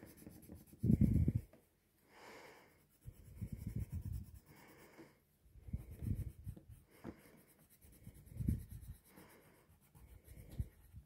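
Coloured pencil shading on paper: scratchy strokes that come in bursts of about a second, with short pauses between. The loudest burst is about a second in.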